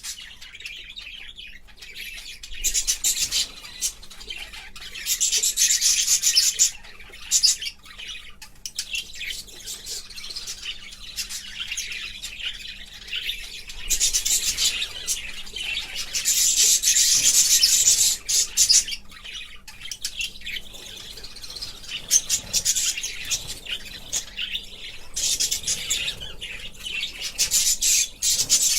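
Budgerigars chirping and chattering in a continuous stream of quick, high chirps, with louder, busier spells three times.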